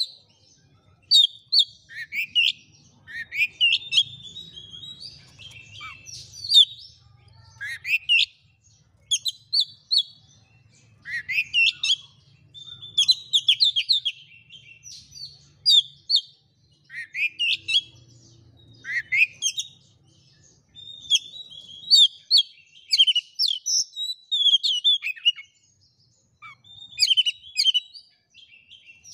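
Oriental magpie-robin singing a loud, varied song: phrase after phrase of rising whistles and quick chattering notes, one every second or two, with brief pauses between.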